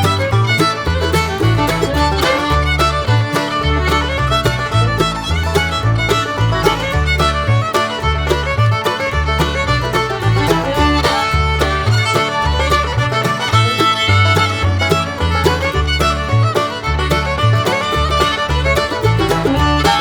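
Background music with a lively melody over a steady bass line that changes note in an even beat.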